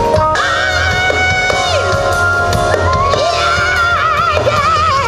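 Music with a sung melody: a voice holding long notes with vibrato over a steady bass line.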